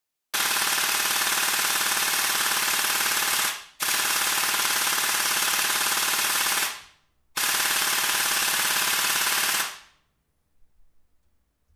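Bare airsoft electric gearbox, held by hand outside the gun, cycling on full auto in three bursts of about three seconds each: a fast, even mechanical rattle of the motor, gears and piston. It was run with the spring retainer not properly secured, which the owner blames for gouging the gearbox shell.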